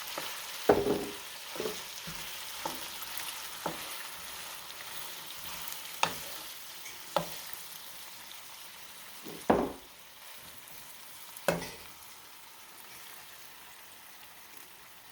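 Food sizzling in a pan with a steady hiss that slowly dies down, broken by about eight sharp knocks or clinks of a utensil against the pan.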